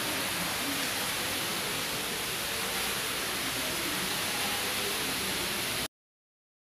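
Steady hissing rush of noise, even in level and without any tone, that cuts off abruptly about six seconds in, leaving dead silence.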